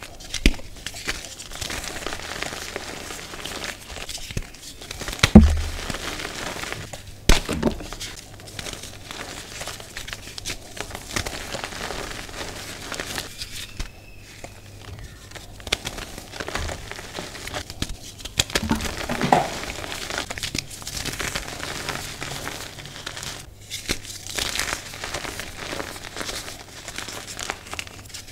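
Hands crushing and crumbling lumps of green reformed gym chalk: a steady dry crunching and crackling, with a few louder cracks about five, seven and nineteen seconds in.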